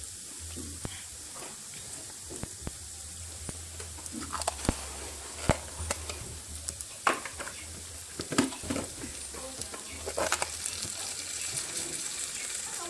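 Rice frying in hot oil in a pot, sizzling steadily while a spoon stirs it. The spoon scrapes and knocks against the pot now and then, more often from about a third of the way in.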